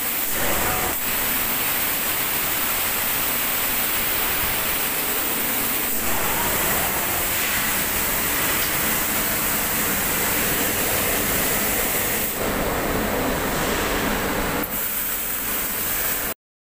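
Steady hiss of a robotic compressed-air spray gun atomising ceramic glaze into a toilet bowl. The hiss grows brighter for a couple of seconds near the end, then cuts off suddenly.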